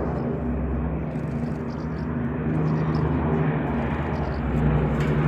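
Rolls-Royce Merlin piston engines of a Lancaster bomber and a Hurricane fighter flying over together: a steady low engine drone that grows louder near the end as the aircraft come closer.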